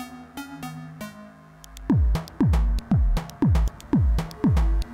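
Elektron Model:Cycles groovebox playing an electronic pattern. Pitched synth notes and light ticks play first. About two seconds in, a deep kick drum with a falling pitch comes in, hitting about twice a second with ticks between the hits.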